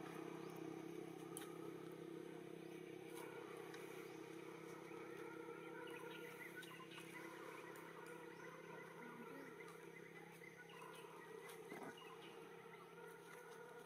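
Faint outdoor ambience: a steady low hum with scattered faint chirps and a few light clicks.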